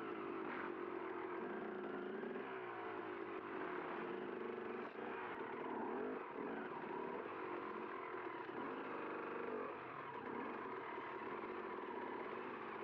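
Enduro dirt bike engine revving, its pitch repeatedly rising and falling as the throttle is worked.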